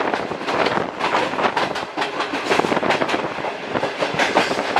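Passenger train coach running at speed, heard from its open doorway: a fast, uneven clatter of wheels over rail joints on top of a steady rolling noise.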